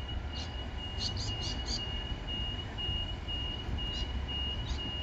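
Door-closing warning beeps of a Queensland Rail electric suburban train: short high beeps repeated about twice a second as the doors shut, over the low hum of the stationary train. A few birds chirp in the first two seconds.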